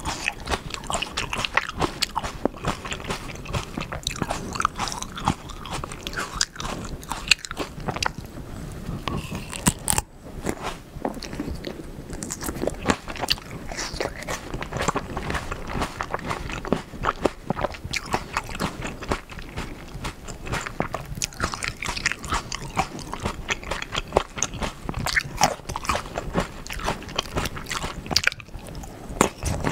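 Close-miked biting and chewing of black sapphire grapes, seedless and eaten whole with the skin on: a steady run of sharp wet clicks, with a short break about ten seconds in.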